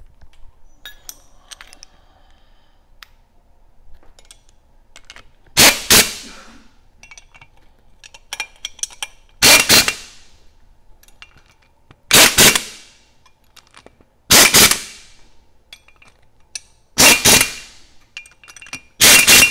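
Impact wrench hammering in six short bursts of about half a second each, a few seconds apart, running down the bolts of a gas regulator's spring tower. Light metallic clinks of socket and nuts come between the bursts.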